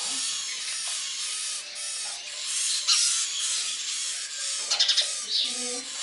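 A steady high-pitched hiss, with small birds chirping now and then and a quick rattle of chirps about five seconds in.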